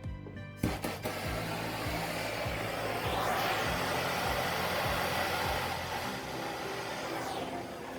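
Handheld gas torch flame hissing steadily as it scorches a pine board. It starts about a second in and is loudest in the middle.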